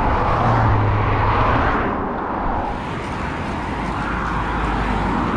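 Road traffic noise: a steady rush of passing vehicles, louder at the start and again near the end.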